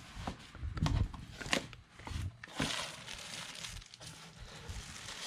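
Parcel packaging being handled: bubble wrap and plastic crinkling and rustling, with scattered knocks and taps.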